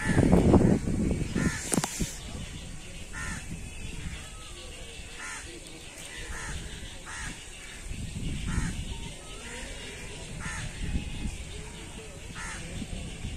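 Crows cawing over and over, short calls about once a second.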